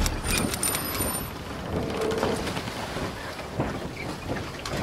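Intro sound effect: a low thud, then a steady hiss with scattered sharp clicks, the clicks bunched in the first second or so.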